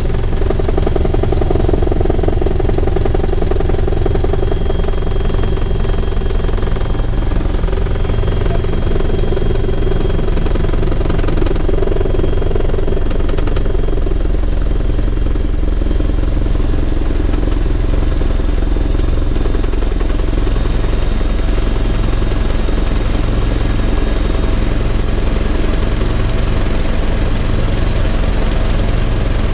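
Bell 412 helicopter's cabin noise in flight: a loud, steady drone of rotor and turbines with a pulsing low beat and a thin high whine.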